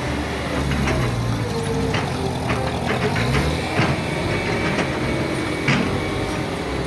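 Single-drum vibratory road roller's diesel engine running steadily as it works a dirt slope, with a few sharp knocks scattered through the hum.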